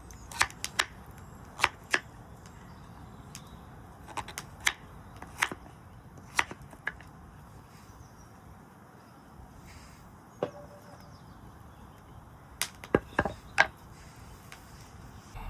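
Knife chopping vegetables on a board: irregular sharp knocks, with a quieter stretch in the middle and a quick run of cuts near the end.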